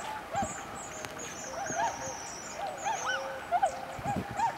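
A flock of swans calling, many short overlapping honking notes. A small songbird's high chattering trill runs above them in the first half.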